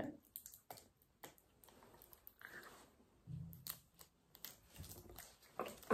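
Faint, scattered clicks and scrapes of a small plastic bottle cap being bitten and pried at with teeth and fingertips, a cap that will not come off.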